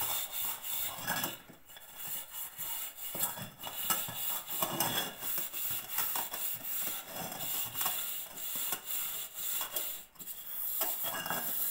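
Steel wire scourer scrubbing a stainless steel pot with stove coal ash, a rasping scrape repeated stroke after stroke. It pauses briefly about a second and a half in and again near the end.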